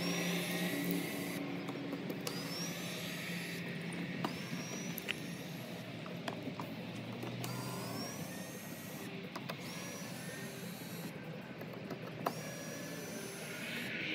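Cordless drill backing screws out of a wooden shipping crate's lid. The motor whines up in short spurts every second or two, each with a small click as the bit catches the screw.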